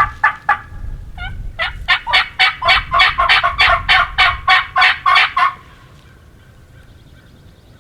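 Loud run of turkey yelps, sharp evenly spaced notes about four a second. There is a short break about a second in, and the run stops about five and a half seconds in.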